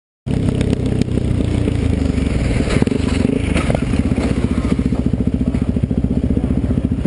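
A vehicle running loudly with a rapid, even pulsing, starting suddenly just after the beginning. Several sharp clattering knocks and scrapes come in the first few seconds.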